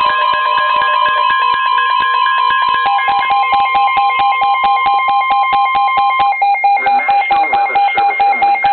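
Weather radio receiver sounding a warning alert: the broadcast's steady warning alarm tone (the EAS attention signal) over the receiver's own rapid beeping, about five beeps a second. The beeping shifts to a lower pitch about three seconds in, and the steady tone cuts off about six seconds in while the beeping goes on, signalling that a warning message is about to be read.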